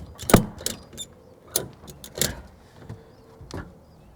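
Ratchet strap being tightened: the handle is worked in strokes, giving a string of irregular ratchet clicks and knocks, the loudest about a third of a second in.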